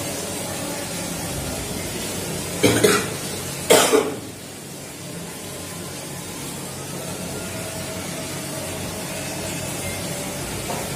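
Two short coughs about a second apart, over a steady background hiss.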